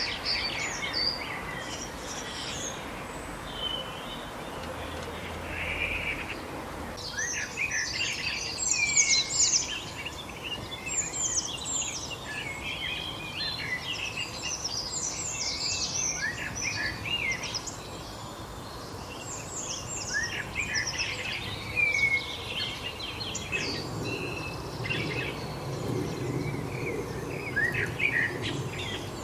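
Several birds chirping and calling over a steady background hiss, with a few scattered calls at first and many overlapping chirps from about a quarter of the way in.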